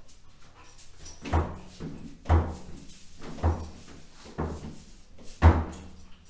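Five hollow thumps about a second apart, the raised dog cot's frame knocking against the tiled wall as the dog tugs on a rope toy.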